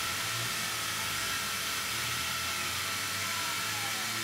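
Tormach PCNC 770 CNC mill's spindle running as an end mill profiles an aluminum part: a steady whine with a hiss over it. A tone slides downward in pitch over the last couple of seconds.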